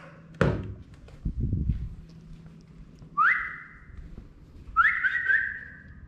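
A sharp knock, then a short low rumble, then a cockatiel whistles twice, each call sweeping quickly upward and then held level for about a second, the second with a brief break in it.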